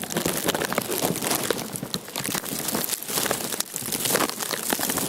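Plastic wrapped around the camera crackling and rustling, a steady dense patter of small ticks.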